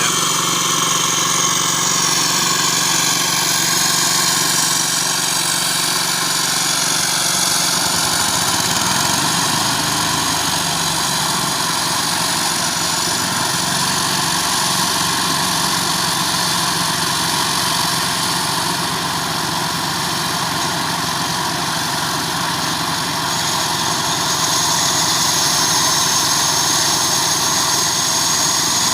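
Caterpillar 330 GC excavator's diesel engine running steadily, with a high whine that shifts in pitch over the first several seconds and grows stronger near the end.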